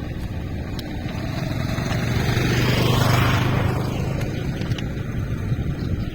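A motor vehicle driving past, its engine and tyre noise building to a peak about three seconds in and then fading away.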